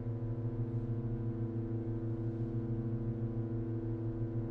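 Pipe organ holding a steady chord of several low and middle notes. The close tones beat against each other, giving a continuous wavering pulse.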